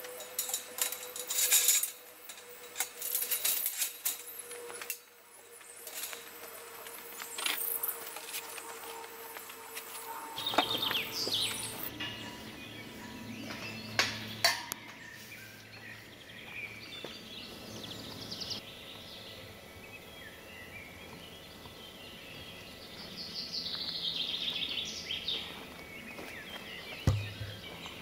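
Galvanized steel sheep hurdle panels and gate clinking and rattling as they are handled and latched, with sharp metal clanks through the first half and a couple more a little after the middle. Birds chirp in the background through the second half, and there is a single low thump near the end.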